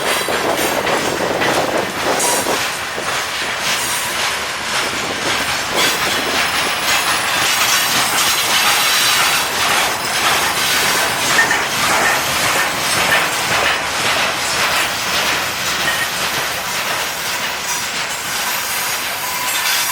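Freight train wagons rolling past, wheels clattering over the rail joints in a steady rush of noise, with a thin high squeal at times.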